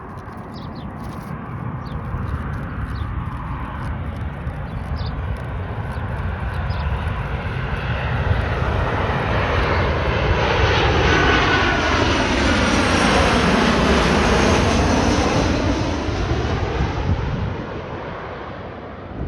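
Jet airliner on landing approach passing low overhead: the engine noise swells over several seconds, is loudest as the aircraft passes, with curving tones sweeping down in pitch, then fades away.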